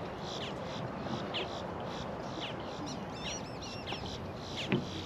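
Birds calling: short falling chirps several times a second, with a brief run of warbling notes about three seconds in, over a steady hiss.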